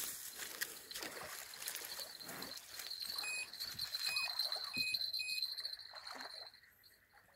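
Water splashing and sloshing at the side of an inflatable boat as a hooked catfish is played close in on a bent rod. The splashing dies away near the end, and a steady high cricket trill runs underneath.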